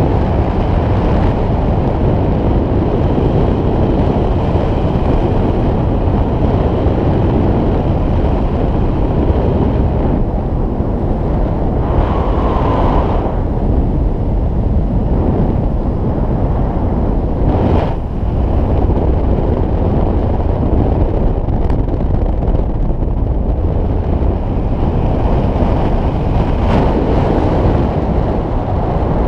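Loud, steady wind rushing over the camera's microphone during paraglider flight.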